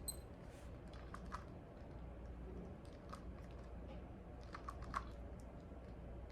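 DaYan 2x2 plastic speed cube being turned by hand, its layers clicking and clacking in quick, irregular bursts, with a cluster of sharper clicks about five seconds in.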